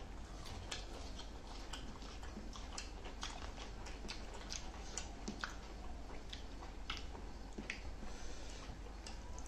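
Chewing and eating with the hands: scattered soft clicks and mouth smacks, a few a second, over a low steady hum.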